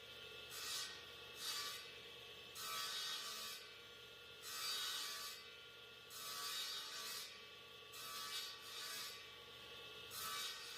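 Abrasive scraping strokes on wood, about eight irregularly spaced strokes each lasting half a second to a second, like hand sanding or rasping a workpiece. Faint background music with steady tones runs beneath.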